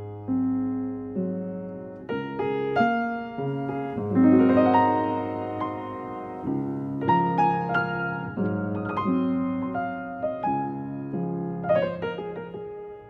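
Background piano music: gentle chords and a melody, each note struck and left to ring away.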